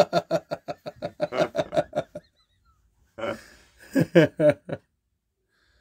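A man laughing: a long run of quick, evenly spaced "ha" pulses, then a shorter second burst of laughter a little after three seconds in.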